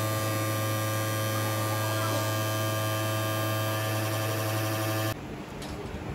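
Steady electrical hum, strong and low with many even overtones above it. It cuts off abruptly about five seconds in, leaving a quieter hiss.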